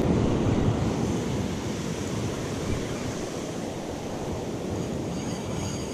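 Ocean surf breaking and washing up a sandy beach, with wind on the microphone; a little louder in the first second, then steady.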